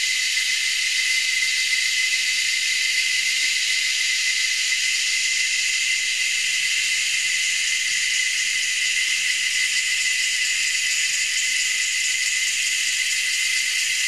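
A chorus of three or four species of cicadas calling together from the treetops: a steady, unbroken high shrill buzz with a clear piercing tone running through it, holding level throughout.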